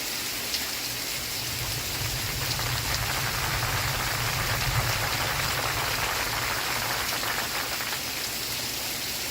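Steady rain falling, an even hiss of drops, with a low rumble that swells for a few seconds in the middle.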